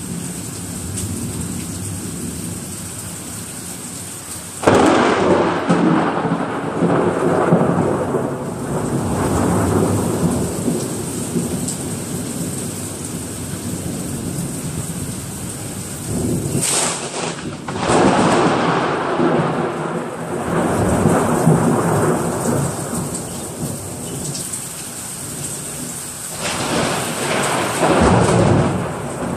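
Heavy rain pouring steadily with thunder. A sudden loud thunderclap comes about five seconds in and rolls on for several seconds, a second sharp crack and rumble comes a little past the middle, and a third rumble swells near the end.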